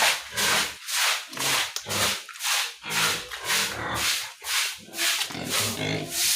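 Pigs grunting and huffing in a regular series of short, noisy snorts, about two a second.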